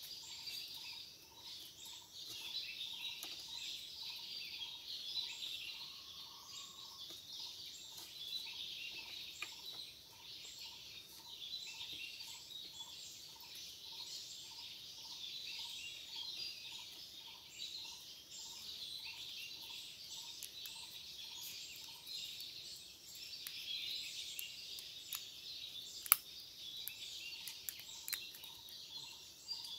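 Forest ambience: a steady high chorus of insects, with a short animal call repeating evenly about one and a half times a second, pausing near the end. Faint clicks of hands handling rubber strips, with one sharp click about 26 seconds in.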